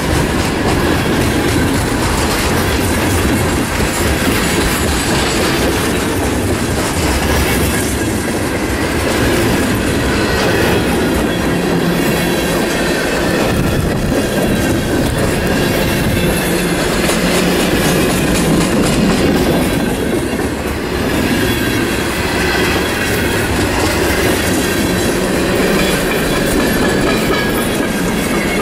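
Long mixed freight train rolling past at speed, its steel wheels clacking steadily over rail joints.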